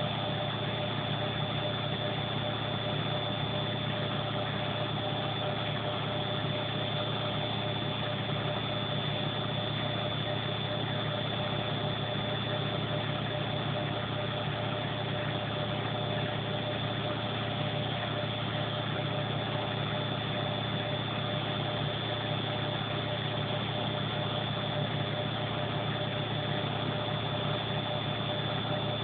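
Front-loading washing machine's drum spinning at a steady high speed in its final spin: an even motor hum with a constant high whine over it, holding the same speed throughout.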